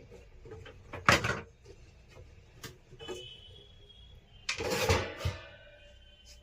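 Two loud clattering knocks of objects being handled, one about a second in and a longer one with a brief ringing tail at about four and a half seconds.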